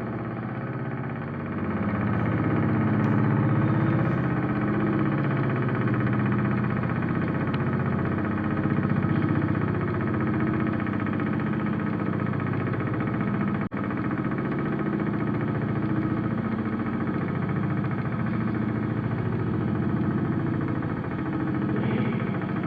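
Electric air raid siren spinning at low speed, giving a low, wavering growl instead of a full wail; it is running properly.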